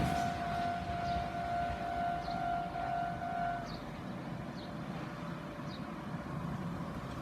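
Japanese level-crossing warning alarm sounding a steady tone as the train draws away, cutting off suddenly about three and a half seconds in, over the fading rumble of the train. A few faint short high chirps are heard.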